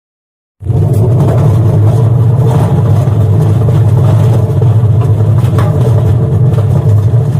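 Washing machine on its spin cycle, making a loud, steady rumble that cuts in abruptly about half a second in. This is the noisy spin the title complains of.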